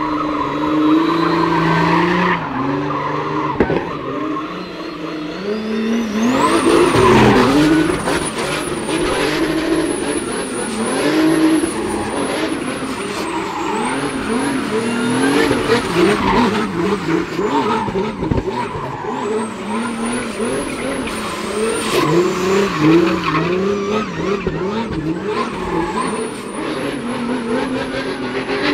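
A drift car driven hard, its engine revving up and down over and over with tyres squealing and skidding. From about six seconds in, a thin high whistle rides over it.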